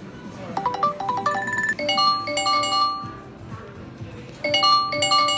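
Google Pixel phone ringtone playing through the phone's speaker: a quick run of short, bright chime notes with a brief trill, then held bell-like notes that fade out, and another set of held chime notes near the end.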